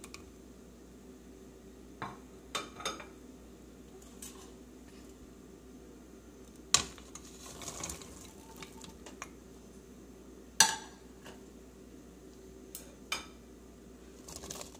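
Chopped vegetables being tipped from a plate into an aluminium pressure-cooker pot: scattered sharp clinks and knocks of the plate against the pot, with pieces dropping in. The loudest knocks come about seven and eleven seconds in.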